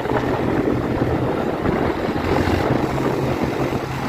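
Single-cylinder Honda CG Start motorcycle running steadily through its loud aftermarket exhaust while being ridden, with wind buffeting the microphone.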